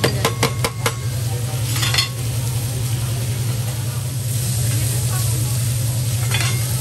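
Food sizzling on a hot teppanyaki steel griddle while a metal spatula scrapes and taps, sliding sliced mushrooms off a plate onto the steel: a quick run of sharp clicks in the first second, then steady sizzling that grows louder, over a steady low hum.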